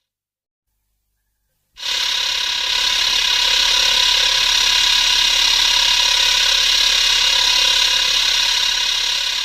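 King Ghidorah's 1964 film cry, a metallic, trilling call. It starts suddenly about two seconds in, is held steady and loud, and begins to fade at the end.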